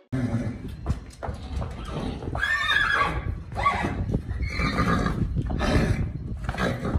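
Horses neighing several times, starting about two seconds in, with hooves clopping on the hard stable floor as a horse is led along the aisle.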